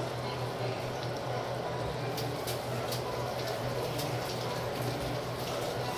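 Chicken and vegetable stir fry simmering in its sauce in a wok, bubbling softly with a few small scattered pops over a steady low hum.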